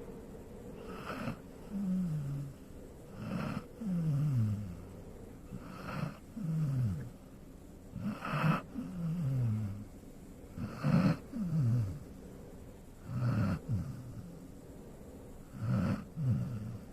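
Golden retriever snoring in a steady rhythm, a breath about every two and a half seconds. Each breath is a short rasping snore followed by a low tone that slides downward in pitch.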